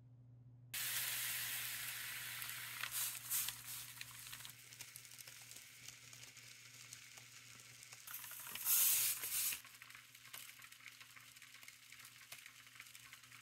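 Liquid nitrogen boiling in a foam bowl around a YBCO superconductor, a sizzling hiss that starts suddenly about a second in and swells briefly twice, most loudly around nine seconds. A faint low hum runs underneath.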